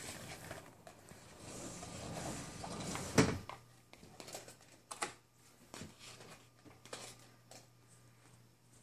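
A sliding door rolling along its track and shutting with a sharp clack about three seconds in, followed by a few faint taps and a low steady hum.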